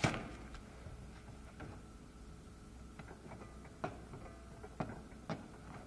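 A sharp knock at the start, then scattered light taps and clicks at uneven intervals as hands handle a log of lefse dough on a floured pastry board and table, over a low room hum.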